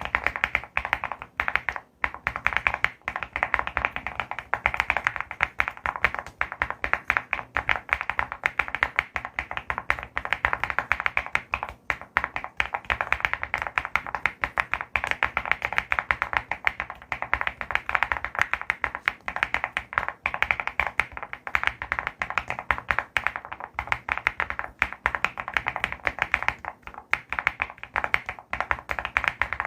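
Mechanical keyboard being typed on fast and without stopping, a dense run of key clicks and clacks with only brief pauses.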